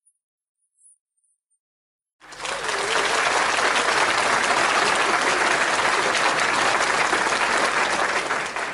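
Applause from a crowd, starting suddenly about two seconds in after near silence and holding steady.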